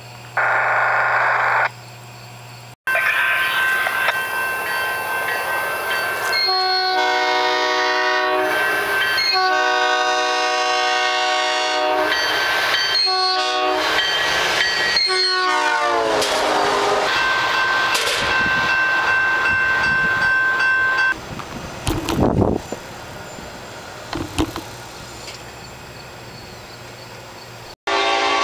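Electric commuter train sounding its multi-chime horn for a grade crossing: two long blasts, a short one, and a final long blast that drops in pitch as the train passes, followed by the rumble of the passing cars. A brief loud tone sounds in the first couple of seconds, before the horn.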